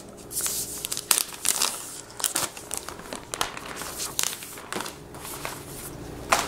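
Thin plastic protective wrapper crinkling and crackling in irregular bursts as it is pulled off a new laptop by hand.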